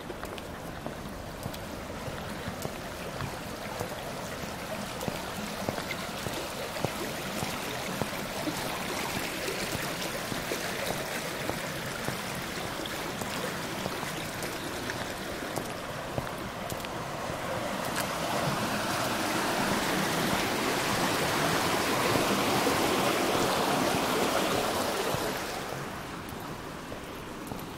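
Running water of a stream, a steady rushing that swells to its loudest about two-thirds of the way through and then drops away quickly. Faint ticks run underneath, like footsteps.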